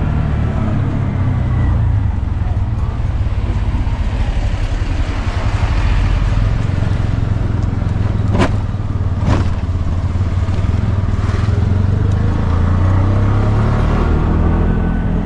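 Auto-rickshaw's small engine running steadily as the three-wheeler drives, heard from inside its open cab. Midway through there are two sharp knocks about a second apart.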